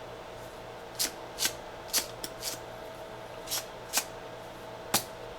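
Hands rummaging among small tools on a bench: a run of short rustles and clicks, about one every half second, over a steady low hum.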